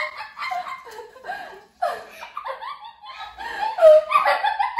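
Girls giggling and laughing in short broken bursts.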